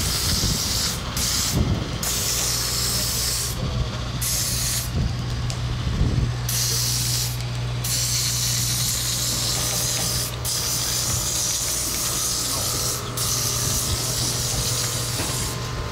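A steady low mechanical hum under a loud hissing noise that breaks off and starts again several times.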